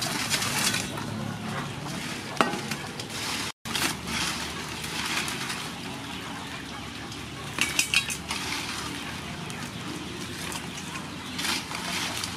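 Small rice-field crabs being washed by hand in an aluminium basin of water: water sloshing and shells clattering against the metal bowl, with a few sharp clinks.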